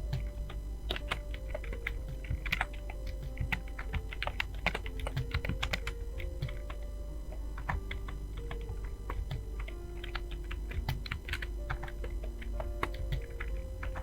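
Fast, continuous typing on a computer keyboard: dense, irregular key clicks, with quiet background music under them.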